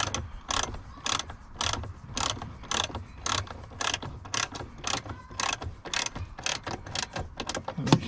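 Hand ratchet wrench tightening a door hinge bolt on a 1997 Lincoln Town Car, the pawl clicking in quick strokes about three a second as the bolt snugs up. One sharper knock just before the end.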